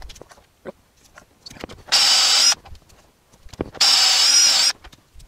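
Cordless drill boring a pivot hole into a wooden chair post, run in two short bursts, the first about half a second and the second about a second long, each with a steady high whine. Faint clicks come between the bursts.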